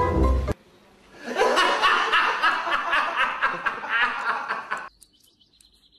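A man laughing, a run of chuckles lasting about four seconds, after a brief burst of mallet-percussion music that cuts off half a second in.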